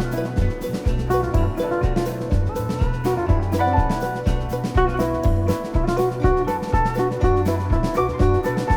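Background music: an instrumental track with a drum kit keeping a steady beat under pitched melodic parts.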